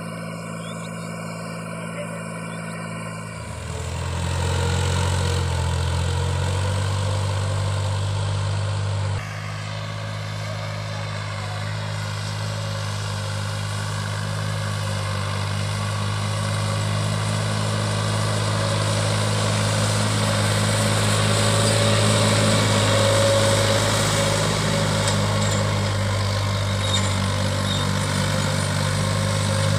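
New Holland 480 tractor's three-cylinder diesel engine running steadily under load while pulling a cultivator. The engine note grows louder about three and a half seconds in and shifts abruptly about nine seconds in.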